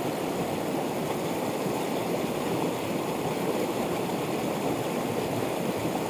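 Mountain torrent rushing steadily over rocks.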